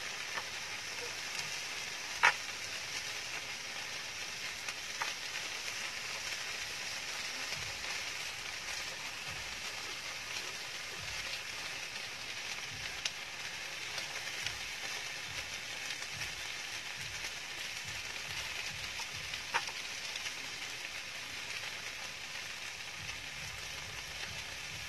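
Chicken and kimchi fried rice sizzling steadily on a hot round grill pan over a portable gas stove. A few sharp clicks of the spoon and chopsticks striking the pan cut through, the loudest about two seconds in.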